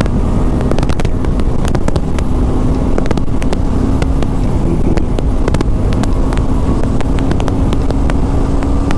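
Motorcycle riding at road speed: heavy wind rumble and crackling buffeting on the microphone over the engine drone, which settles into one steady note from about two and a half seconds in.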